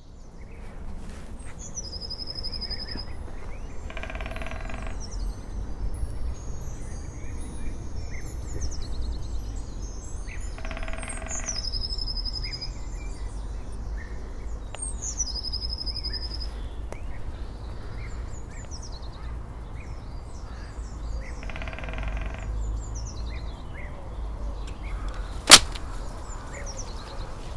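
Forest ambience: several birds chirping and trilling over a steady low rumble, with a lower, longer call three times. One sharp, loud click comes near the end.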